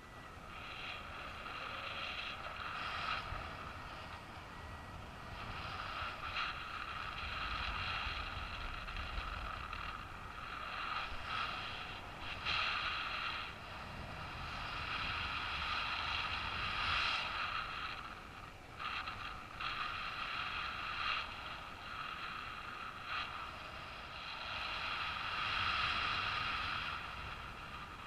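Airflow of paraglider flight: wind rushing past the microphone with a whistling set of high tones that swells and fades every few seconds.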